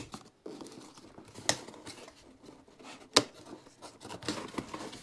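Cardboard boxes being handled and shifted, with scraping and rubbing of cardboard and two sharp knocks, one about a second and a half in and a louder one about three seconds in.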